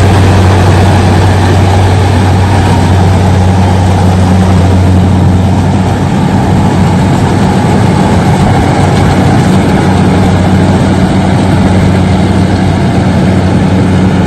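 An engine running steadily at constant speed, loud, with a deep steady hum over a dense mechanical noise.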